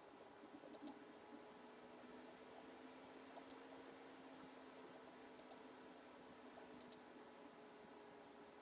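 Near silence with a faint steady hum, broken by four faint pairs of computer mouse clicks, each a quick press-and-release, a second or two apart.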